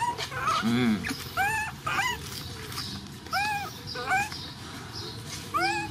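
Puppy whimpering: short, high whines that rise and fall, about six of them, a second or so apart.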